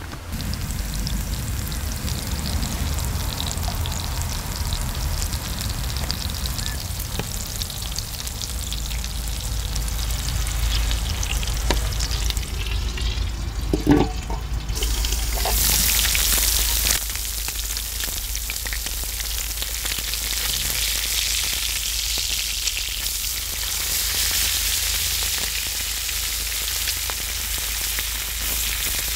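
Hamburger steak patties sizzling in butter on a cast-iron griddle over a steady low rumble. About halfway through, a metal lid knocks once, and the sizzling then becomes louder and brighter. Near the end a wooden spatula scrapes and pushes the patties.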